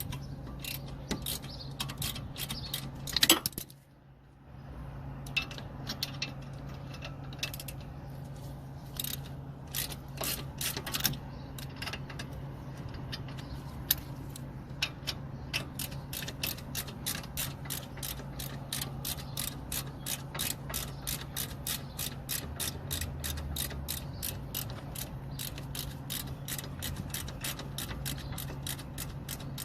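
Ratchet wrench clicking while turning out the brake caliper bolts: scattered clicks and a sharp knock about three seconds in, then a long even run of about three to four clicks a second through the second half.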